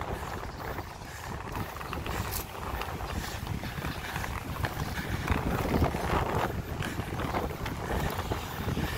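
Inline skate wheels rolling over a brick-paver path, with irregular clicks as they cross the joints, and wind buffeting the microphone.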